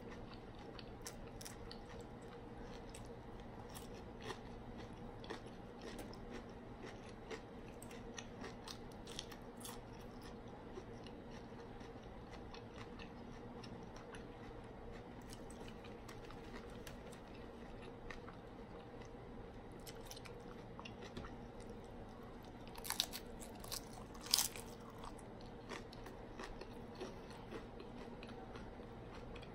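Chewing and crunching of a crispy hard-shell ground-beef taco, with many small crunches. Two louder crunches come about three-quarters of the way through.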